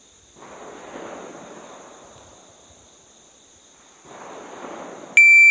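Wind buffeting the microphone in two soft gusts, then near the end a shot timer's start beep: one loud, steady, high-pitched beep about half a second long, the signal to draw the pistol.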